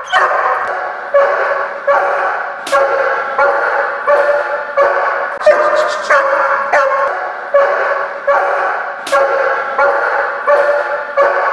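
German shepherd barking over and over in a steady rhythm, about two barks a second. These are guard barks at a man approaching the staircase the dog is holding.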